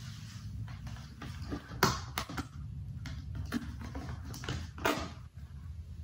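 Cadence electric desk fan running with a steady low hum, with irregular sharp clicks and knocks over it, two of them louder than the rest.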